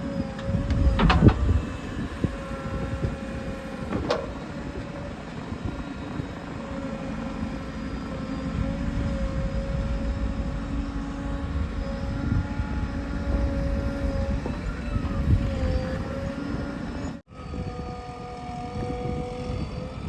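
JCB 3DX backhoe loader's diesel engine working under load, with a steady whine that wavers slightly in pitch over a low rumble. A heavy knock comes about a second in and a lighter one around four seconds, and the sound cuts out for an instant near the end.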